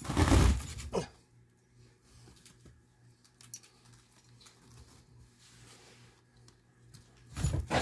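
Handling noise: a hand brushing across a cloth playmat as a plastic action figure is set down, a brief rustle ending in a light click about a second in. Then quiet with a few faint ticks, and another short rustle of handling near the end.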